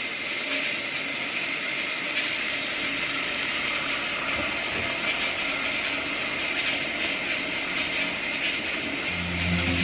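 Kitchen faucet running in a steady stream of water into the sink, switched on just before. Music comes in near the end.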